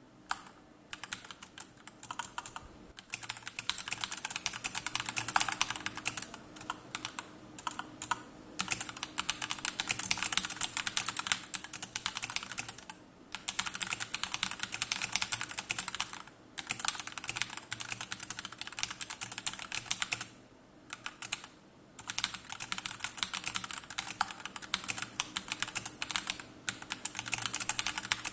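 Fast, steady typing on a mechanical keyboard with SA-profile doubleshot PBT keycaps and Akko CS Matcha Green linear switches: dense runs of keystrokes, broken by a few short pauses and one longer pause a little past the middle.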